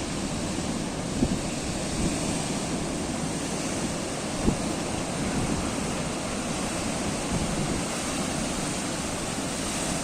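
Atlantic Ocean waves washing and breaking in a steady rush, with wind noise on the microphone. Two short thumps stand out, the louder one about four and a half seconds in.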